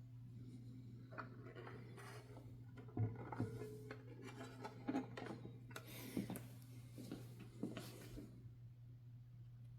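Irregular clicks, knocks and rubbing scrapes from handling the parts of a 1969 Adler J5 manual typewriter, over a steady low hum.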